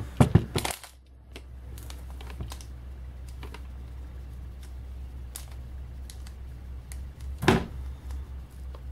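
Handling noise from a hard plastic CGC comic slab being touched and held: a cluster of sharp clicks at the start, faint scattered ticks, and one louder knock about seven and a half seconds in, over a steady low hum.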